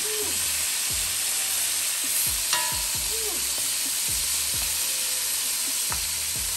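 Seasoned beef short ribs sizzling steadily as they brown in hot oil in a pot, with a single metallic clink about two and a half seconds in.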